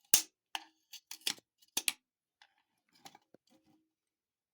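Sharp metallic clicks and scrapes of a steel snap ring being pried out of its groove in a TH400 transmission case, about seven in quick succession, then a few fainter ones.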